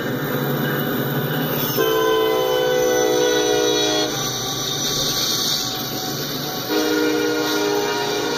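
CSX SD40-3 diesel locomotive sounding its multi-note horn as it passes: one long blast of about two seconds starting near the two-second mark, a pause, then a second blast starting near the end. Under the horn runs the steady rumble of the passing train.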